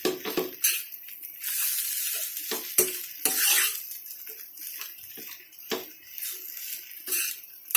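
A cooking utensil knocking and scraping in a pan as boiled potato and pea stuffing is pressed and mashed over the heat, with irregular knocks against the pan over a light sizzle.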